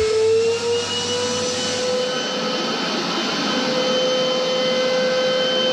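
Canister wet-and-dry vacuum cleaner running hard with its hose sealed to a suction plate on the ceiling. Its motor whine rises slightly in pitch over the first two seconds, then holds steady.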